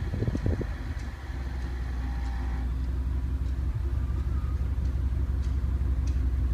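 Cadillac STS exhaust with the center resonator removed and two Flowmaster mufflers, the engine idling steadily with a low drone after a few short pulses at the start.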